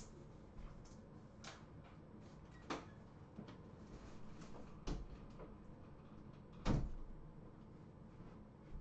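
A few soft knocks and clicks over a low, steady room hum. The loudest knock comes near the end, with smaller ones about a third and halfway through.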